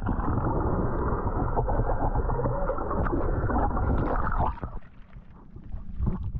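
Muffled rushing and gurgling of water heard by a camera held under the surface. It drops away about four and a half seconds in and swells again near the end.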